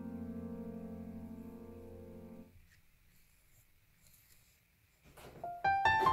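Background music: a held keyboard chord with a slight pulse fades and stops about halfway through. After a near-silent gap, new piano notes begin near the end.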